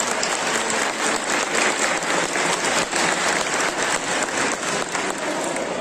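Audience applauding, many hands clapping steadily in a large hall, easing off a little near the end.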